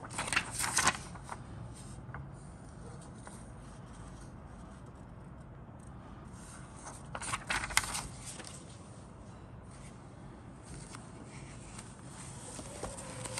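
A printed paper leaflet being handled and turned over: two short bursts of crisp paper rustling, one just after the start and one about seven seconds in, with fainter handling noise between.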